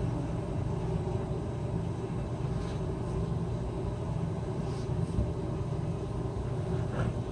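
Steady low rumble and hum of room background noise, with a few faint soft knocks.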